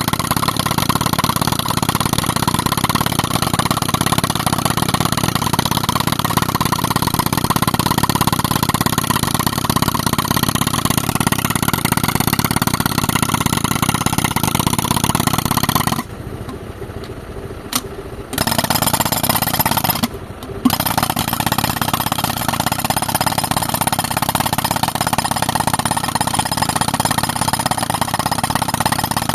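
Tractor-driven air compressor and pneumatic rock breaker running, a loud steady mechanical din. The loud part cuts out for about two seconds some 16 seconds in and again briefly about 20 seconds in, leaving a quieter engine sound running underneath.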